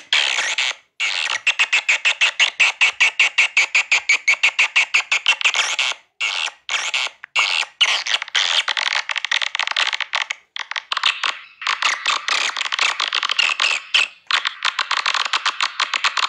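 Recorded swiftlet calls played back: rapid rattling chirp trills, about ten short chirps a second, in runs with brief breaks.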